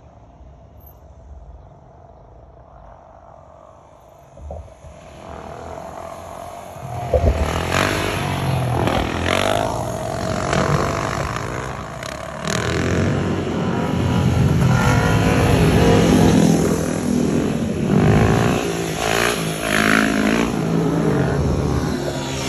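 Several sport motorcycles revving and accelerating as they ride closer. The sound grows louder from about five seconds in, with repeated rises and falls in engine pitch.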